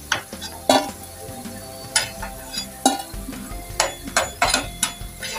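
Metal spatula clinking and scraping against a frying pan and a steel dish as fried potato slices are lifted out of shallow oil: about nine sharp knocks spread unevenly, over faint sizzling.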